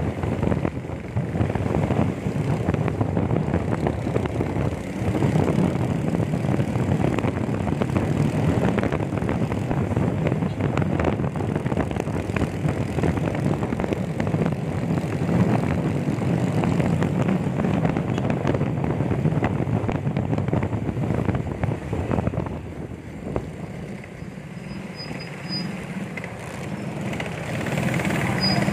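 A motor vehicle's engine running with road noise, a steady rumble that eases off about two-thirds of the way through and picks up again near the end.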